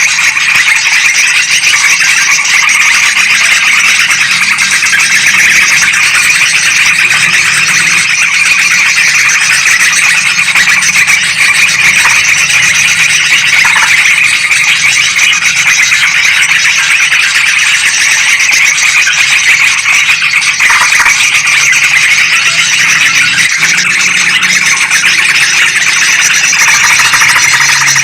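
Dense, loud, unbroken chattering of yellow-vented bulbuls and sooty-headed bulbuls calling together, a bird-trapping lure recording of excited bulbuls.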